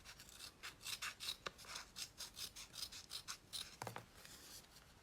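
Faint, irregular rubbing and scratching strokes from kinesiology tape being handled and trimmed, several short strokes a second, with one slightly stronger stroke near the end.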